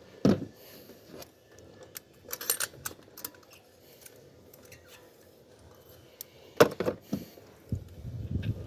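Scattered metallic clinks and knocks of hand tools and engine parts being handled, in a few short clusters, with a low rumble near the end.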